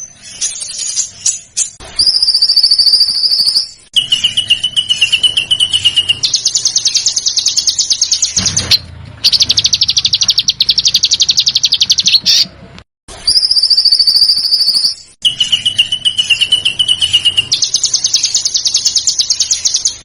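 Small songbirds giving loud, fast rattling trills, edited into a loop: a high trill, then a lower steady trill, then a long fast buzzy trill, with brief gaps between them. The same sequence starts again about halfway through.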